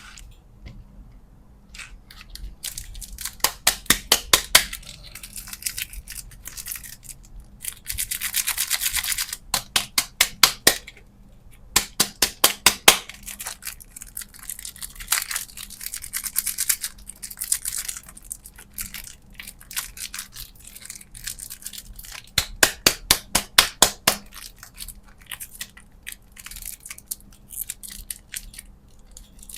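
Candy packaging handled close to the microphone: rapid runs of crisp clicking and crinkling, with a longer rustling, tearing stretch about eight seconds in.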